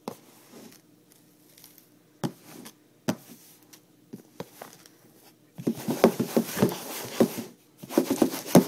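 Clear plastic container and lid handled close to the microphone: scattered clicks and taps, then two spells of dense crackling rustle in the second half, the loudest part.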